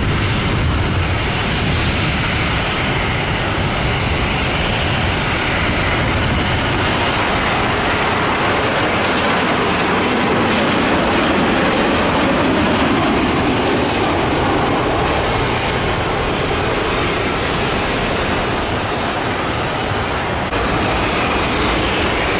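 Jet airliner (Boeing 737 type) landing: steady jet engine noise with a faint high turbine whine, swelling midway as the plane passes over the runway at touchdown, with low wind rumble on the microphone.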